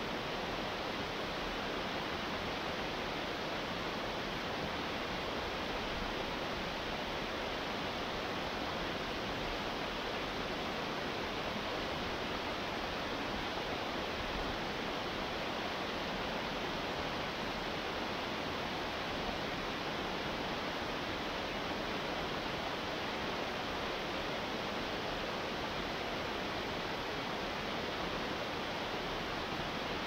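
Small waterfall cascading over rocks into a stream: a steady, even rush of falling water.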